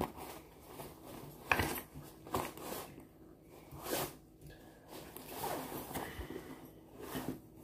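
Rummaging by hand through a fabric shoulder bag: soft rustling with a few short scrapes, then a longer stretch of rustling near the end.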